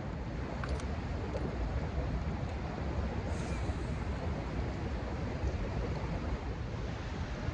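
Steady rushing noise of wind and fast river current, with a deep rumble. A short swish comes about three seconds in as a casting rod is swung.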